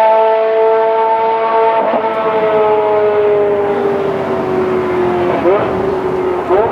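Ferrari 360 GTC's 3.6-litre F131 V8 racing engine running hard, its pitch slowly falling, with short quick jumps in revs about two seconds in, about five and a half seconds in, and near the end.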